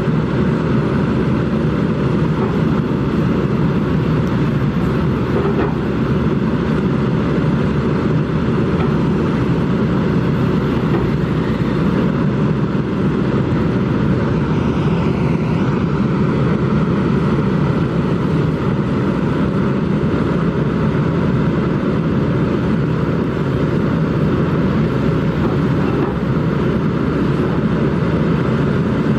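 Kobelco SK200 excavator's diesel engine running steadily under working load.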